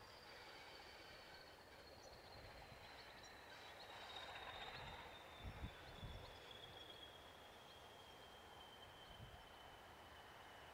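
Near silence: faint outdoor ambience with a thin high tone that slowly falls in pitch, and two or three brief low thumps about halfway through.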